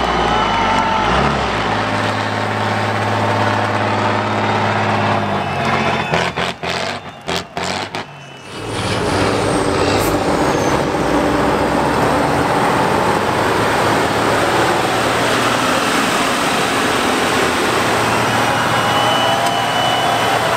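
Heavy diesel engines of off-road trial trucks running hard under load on a steep climb, pouring black smoke. The sound drops out in several short gaps a little past the middle, then the engine noise picks up again and runs steadily.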